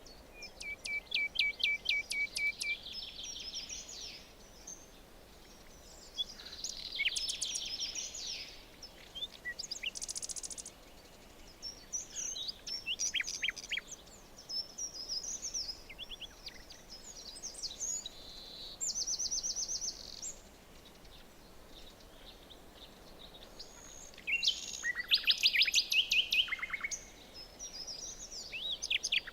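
Several songbirds singing and calling in a forest chorus: rapid trills, repeated high notes and short sweeping whistles, one after another over a faint steady hiss, loudest near the end.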